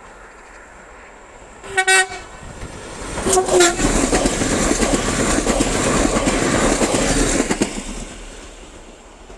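A Siemens Desiro electric multiple unit gives two short horn toots about a second and a half apart, then passes at speed with loud wheel-on-rail noise that fades away as it goes.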